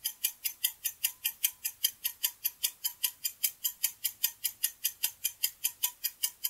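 Countdown-timer sound effect: a clock ticking evenly, about five sharp ticks a second.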